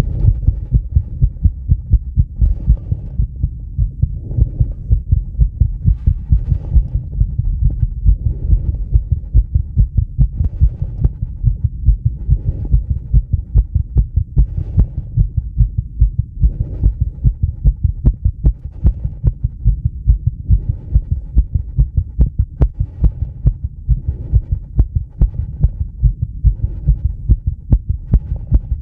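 Fast heartbeat picked up by a microphone pressed on the chest, a rapid, even train of low lub-dub thumps at about 130–140 beats a minute: tachycardia brought on by rebreathing bag air and mild CO2 build-up. A soft rush of breath rises and falls about every two seconds over the beats.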